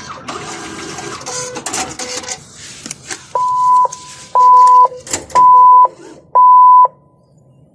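Automated teller machine during a cash withdrawal: the dispenser mechanism whirs and clatters for a couple of seconds, then four loud, even beeps sound about a second apart.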